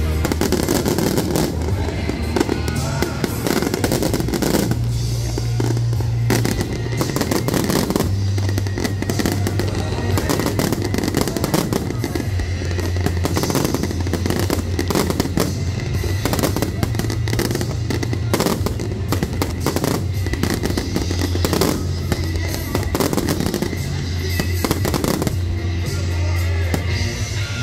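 Fireworks display: aerial shells bursting in rapid, overlapping bangs, thinning out near the end, over loud music with a steady bass line.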